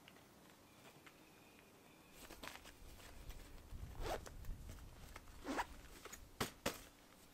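Zipper on a nylon tent being pulled in several short, quick strokes, with fabric rustling; it starts about two seconds in and the last strokes near the end are the loudest.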